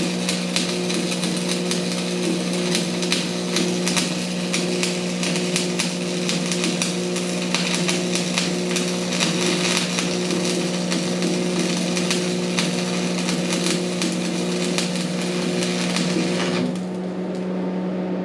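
Stick-welding arc crackling and sizzling steadily as a 7018 rod burns, over the steady hum of the welding machine. The arc breaks off near the end, leaving only the hum.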